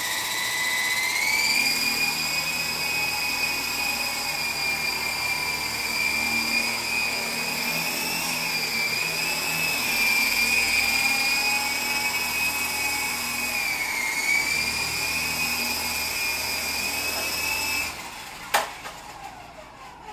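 Electric rotor motors of an MJX T-10 toy RC helicopter whining as it spools up and flies. The high whine rises in pitch over the first second or so, then wavers with the throttle. It cuts off near the end, followed by a single sharp knock.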